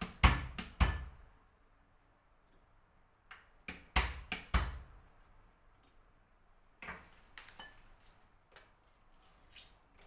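Lemongrass stalks being smacked to bruise them: two sharp knocks at the start, a quick run of about five more around four seconds in, then lighter, scattered taps.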